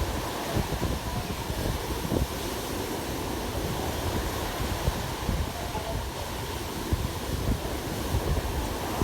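Ocean waves surging and washing on the shore, with wind buffeting the microphone in frequent low thumps.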